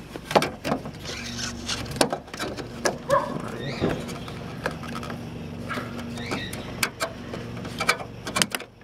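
Fingers handling a 2012 Honda Fit's plastic license plate lamp and pressing the tab on its wiring connector: a string of small plastic clicks and taps with handling rubs close to the microphone, as the connector is worked apart.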